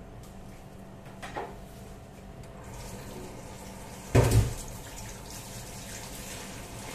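Kitchen tap running into a stainless steel sink while hands are rinsed under the stream; the water starts about two and a half seconds in. A light knock comes shortly before, and a loud, dull thump about four seconds in.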